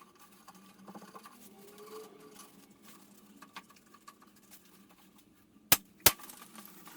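Handling noise of plumbing tools and fittings: light scattered clicks and scrapes, then two sharp clicks about a third of a second apart near the end.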